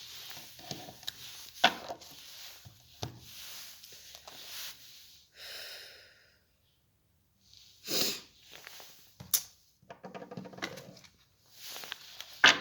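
Tarot cards being handled: short rustling slides and light taps. There is a pause of about a second and a half in the middle, and a sharp tap near the end.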